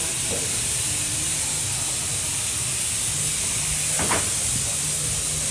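Steady outdoor hiss over a low, uneven rumble of wind on the microphone. A brief pitched call sounds about four seconds in.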